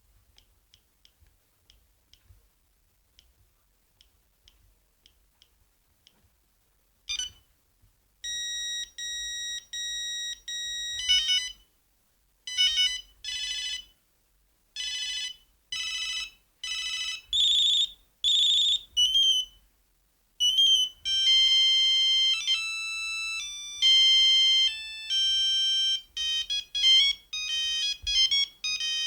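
Siemens C35 mobile phone playing its built-in monophonic ringtones and alert tones: faint ticking for about the first seven seconds, then a run of short beeping alert tones, then a quick melody of single notes from about twenty seconds in.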